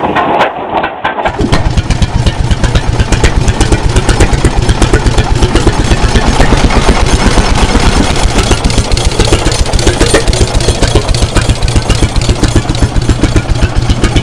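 International Harvester Titan 10-20's two-cylinder horizontal kerosene engine running, with a loud, fast, even exhaust beat.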